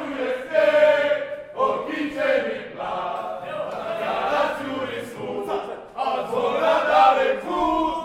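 A group of men singing together in loose unison, several voices holding and shifting notes.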